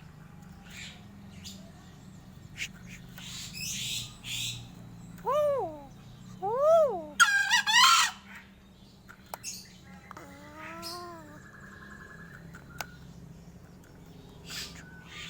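Crow giving odd, varied calls: two rising-then-falling whooping calls, a quick high rattle, then a shorter wavering call, with scattered clicks between them.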